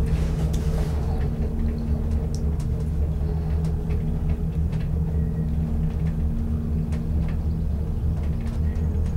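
Gondola cabin in motion: a steady low rumble with a constant mechanical hum, and scattered light clicks and rattles.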